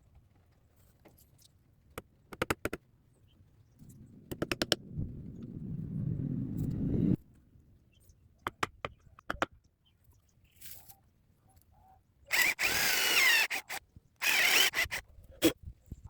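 Woodworking tool sounds: clusters of sharp taps and knocks on wood, and a power tool's motor running and building for about three seconds before cutting off. Near the end come two loud, scraping, squealing bursts of a tool biting into wood.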